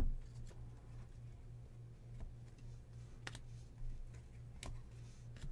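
Trading cards being handled and sorted by hand: a few faint clicks and taps of card stock, with one sharp knock right at the start, over a low steady hum.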